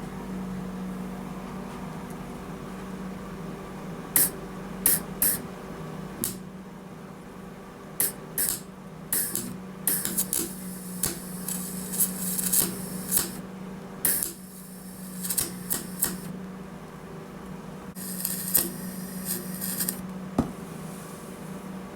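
Argon-shielded MIG welder arc crackling in short bursts of a second or two, starting about four seconds in, with pauses between runs, as weld is laid into the worn bearing groove of a mower-deck spindle. A steady low hum runs underneath.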